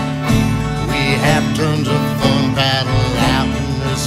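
Background music: a country-style song with plucked guitar.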